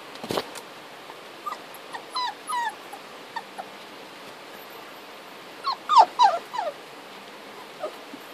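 Dachshund puppy whimpering: two short falling whines about two seconds in, then a louder run of several high falling whines and yips around six seconds in, and one faint whine near the end.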